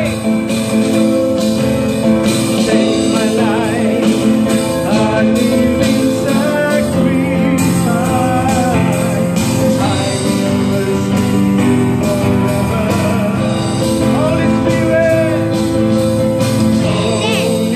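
Live worship music from a small band: strummed acoustic guitar and keyboard playing steadily, with a man's voice singing over them at times.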